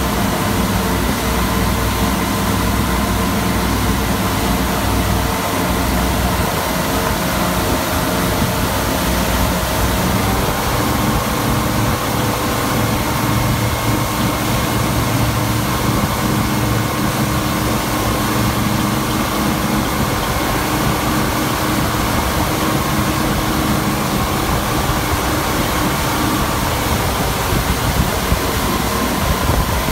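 2000 Regal 2760 Commodore cruiser's engine running steadily at speed, with rushing water and wind over it. The engine note steps up slightly about ten seconds in.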